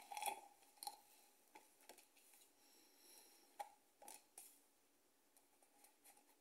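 Near silence with a few faint, scattered clicks and taps of an oracle card deck being handled.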